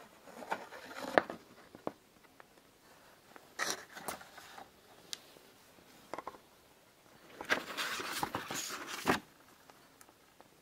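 Paper rustling and scraping as old photographs are handled and shuffled, in three bursts with a few light clicks between, the last burst the longest.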